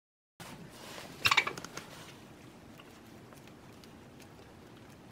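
Hens pecking at a mat of sprouted barley fodder: a short burst of loud clattering clicks about a second in, then scattered light pecks and rustles.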